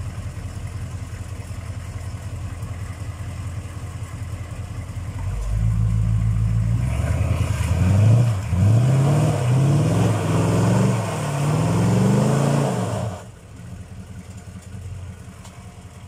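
6.2-litre V8 diesel of a K5 Blazer idling, then about five seconds in it gets louder and revs up and down over and over, about once a second, as the truck spins its wheels in deep mud. A little after thirteen seconds it drops back to idle.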